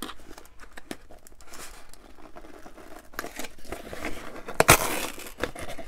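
A small cardboard shipping box being opened by hand: a run of papery rustling, scraping and tearing, loudest in a burst about four and a half seconds in.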